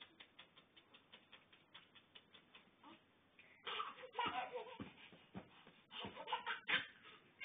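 Baby laughing in short bursts, starting about halfway through; before that only faint ticks.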